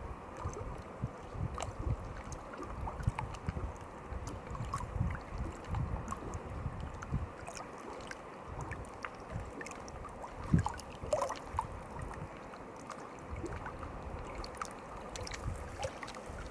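Water lapping and splashing, with gusts of wind buffeting the microphone and scattered small ticks and drips.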